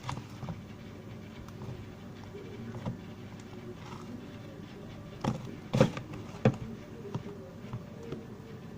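Steady low background noise with three short, sharp knocks or clicks close together, about five to six and a half seconds in.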